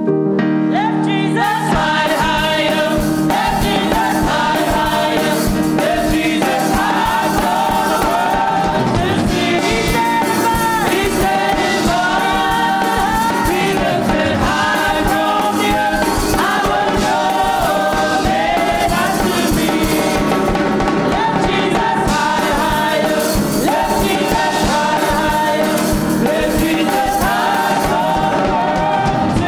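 Group of voices singing a gospel praise song with live instrumental accompaniment.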